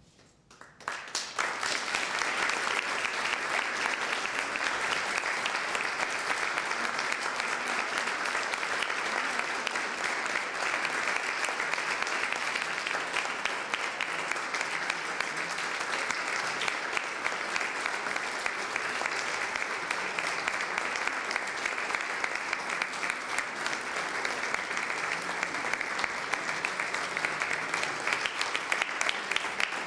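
Audience applauding: the clapping breaks out about a second in and then carries on steadily.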